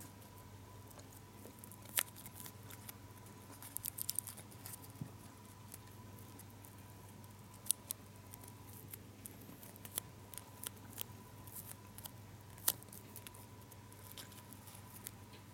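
Tiny foil gum wrapper being folded and creased between the fingers: faint scattered crinkles and sharp clicks, with a quick cluster of them about four seconds in.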